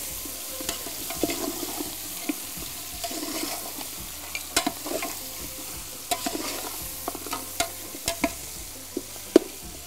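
Meat and sliced onions sizzling in a large aluminium pot while a slotted spoon stirs them, the spoon knocking and scraping against the pot's sides again and again.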